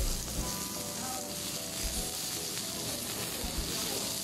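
Thick slices of pork belly sizzling steadily on a ridged grill plate.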